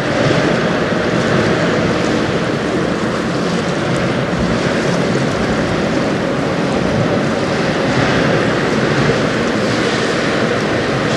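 Steady rushing ambience of wind and river water, with a faint low hum from a passing lake freighter.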